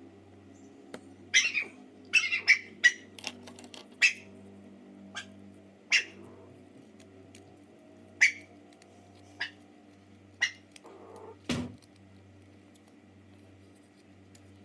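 Scissors snipping paper: about a dozen short, sharp snips at an uneven pace, with a dull knock on the table near the end.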